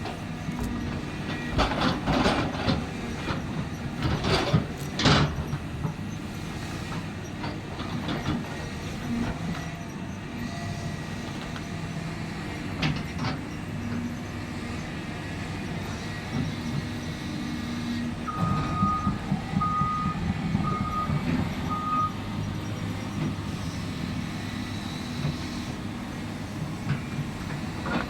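Hydraulic excavator's diesel engine running steadily under work, with a run of metallic clanks and scrapes in the first few seconds. About two-thirds of the way through, a reversing alarm beeps four times.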